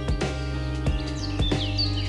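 Background music with a steady beat and held notes, with short high bird chirps over it.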